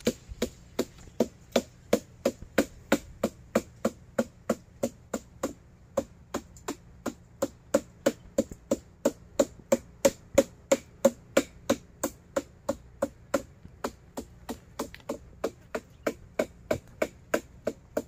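Wooden stick beating the stalk of a nipa palm fruit cluster, a steady run of knocks about three a second. This is the repeated beating that readies the stalk to be cut and tapped for its sap.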